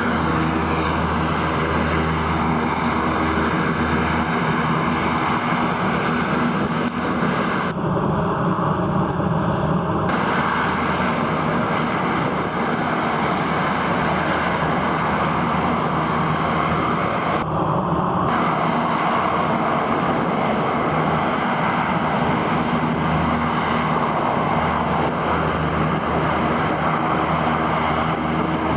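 Small boat's outboard motor running steadily while underway, with a constant rush of wind and water.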